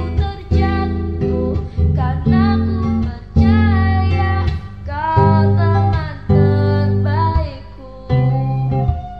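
Background music: a song with plucked acoustic guitar and a singing voice, its notes and chords changing about once a second.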